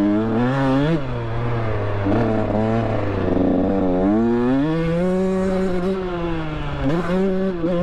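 Two-stroke dirt bike engine revving hard as the rider accelerates toward a jump. The pitch rises and falls, dips about three seconds in, climbs and holds high, then drops briefly and climbs again near the end.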